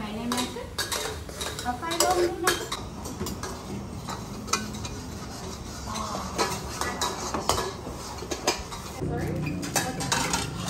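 Metal spatulas scraping and clanking irregularly against metal woks as green curry is stirred over gas burners.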